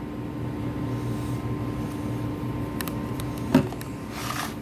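Slime being stirred in a plastic bowl with a mixing tool: a few faint taps and one sharper knock of the tool against the bowl about three and a half seconds in, over a steady low hum.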